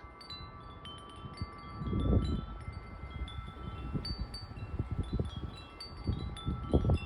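Wind chimes ringing irregularly in gusty wind, many clear tones at different pitches overlapping and ringing on. Low wind gusts buffet the microphone about two seconds in and again near the end.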